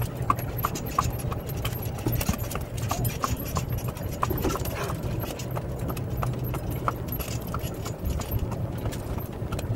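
Hoofbeats of a horse walking alongside a moving golf cart, as irregular clip-clops over the cart's steady low running hum.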